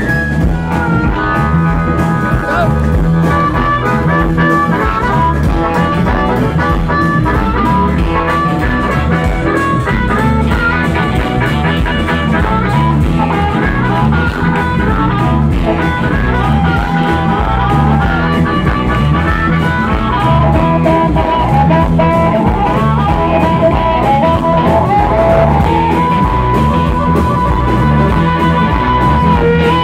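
Live blues band playing a stretch with no singing: drums keep a steady beat under electric guitar and bending lead lines, with a held high note near the end.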